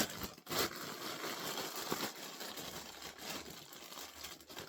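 Plastic packaging crinkling and rustling as items are handled, with a few sharper crackles.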